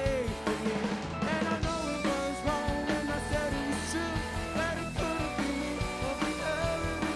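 Live rock band playing: electric guitar, electric bass, keyboard and drum kit.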